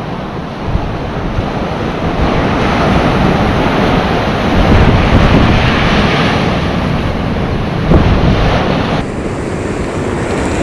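Ocean surf washing on the shore, with wind rumbling on the microphone.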